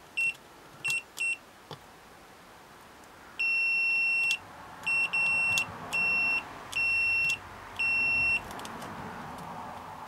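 Multimeter continuity beeper sounding a series of single high-pitched beeps of uneven length, each marking the brake light switch's contacts closing as they are probed. There are three short beeps in the first second and a half, then a run of longer beeps from about three and a half seconds in, stopping and starting as contact makes and breaks.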